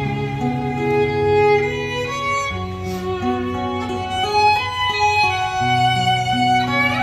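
Instrumental intro of a Vietnamese ballad played back through JBL 4343 loudspeakers driven by a Luxman L-509F amplifier: a sustained melody moving note by note over long, held bass notes.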